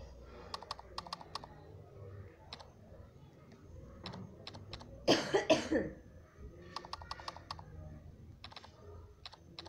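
Clusters of quick, sharp key-press clicks from typing on a smartphone's on-screen keyboard, with pauses between words. About five seconds in comes one short, louder vocal sound like a cough.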